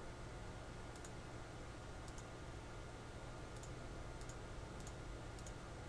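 Computer mouse button clicking six times at uneven intervals, each a faint press-and-release tick, over a low steady room hum.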